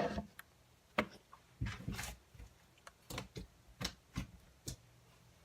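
Irregular clicks and knocks of a camera being handled and set in position, about eight in all, some with a low thud.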